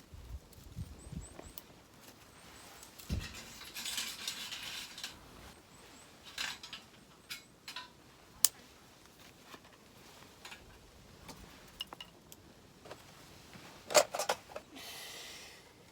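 Light clinks, clicks and knocks of utensils and camp gear being handled, with a couple of sharper clatters, the loudest about fourteen seconds in. A short burst of rustling noise comes about four seconds in, and another near the end.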